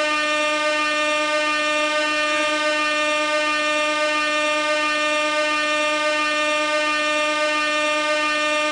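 Air horn sounding one continuous, steady blast at a single pitch, rich in overtones, with no break.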